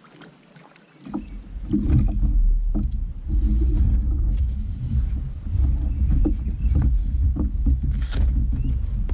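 Soft footsteps on gravel, then from about a second in a loud low rumble with scattered knocks as gear on a Nucanoe Frontier 12 fishing kayak is handled close to the microphone.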